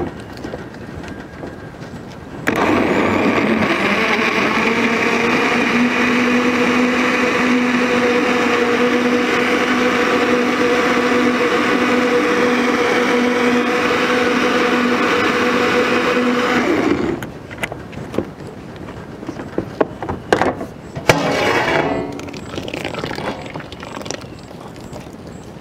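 Electric jar blender running steadily for about fifteen seconds with a steady motor hum, blending a thick milkshake of ice cream, milk and KitKat; it starts abruptly and cuts off. Afterwards come a few scattered knocks as the jar is lifted off and the shake poured out.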